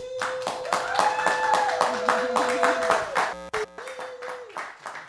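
Small audience clapping, with voices cheering over it. The clapping is densest in the first three seconds or so, then thins to scattered claps.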